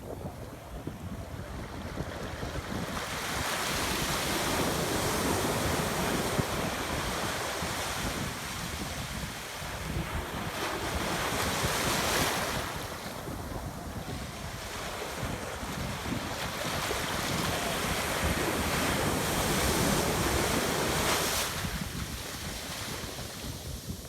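Sea surf breaking and washing onto a sandy beach, swelling and easing in three slow surges.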